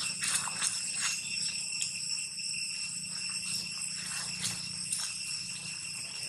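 A steady, high-pitched insect drone with crackling rustles of dry leaves as young macaques scuffle on the leaf litter.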